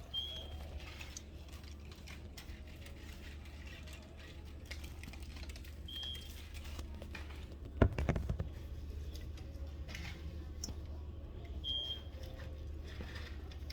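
A short, high electronic beep sounds three times, about six seconds apart, over a steady low hum. Light clicks come and go, and one sharp loud knock sounds about eight seconds in.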